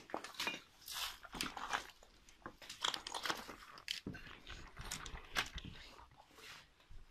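Footsteps crunching over dry debris and through undergrowth, an irregular run of crunches, cracks and rustles.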